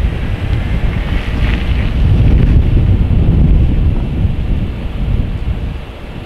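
Strong, gusty storm wind buffeting the microphone: a loud, fluctuating low rumble that eases near the end.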